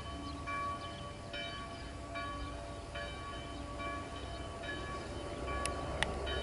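A bell struck over and over, a ringing strike a little more than once a second. A low rumble builds near the end, with a couple of sharp clicks.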